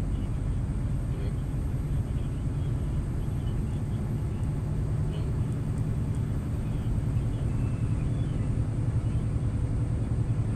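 Scania truck driving at steady motorway speed: a continuous low rumble of engine and tyre-on-road noise, with no change in pace.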